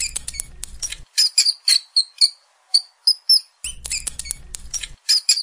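A quick series of short, high-pitched chirps from a small animal, coming in bursts with brief pauses, over a low background hum for part of the time.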